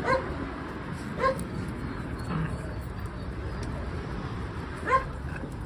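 Puppies yipping: two short, high yips in the first second and a half and one more near the end, over a steady low rumble.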